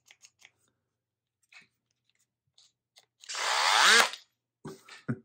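Makita 6317D cordless drill's motor run briefly on the trigger, spinning up with a rising whine for about a second and then stopping abruptly. Its trigger switch is the part the owner says is not working correctly. A few faint clicks come before the run.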